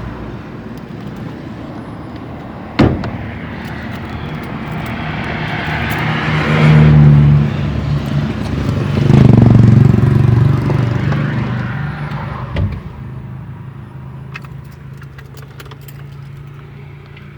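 Chevrolet Chevette four-cylinder engine started with its freshly repaired starter motor, without the grinding the starter used to make. A sharp click about three seconds in, then the engine surges twice before settling to a quieter steady run.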